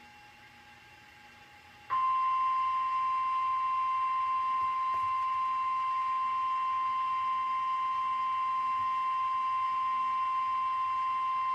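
NOAA Weather Radio 1050 Hz warning alarm tone, sounded for the required weekly test. It comes in sharply about two seconds in, after faint static, and then holds one steady, unwavering pitch.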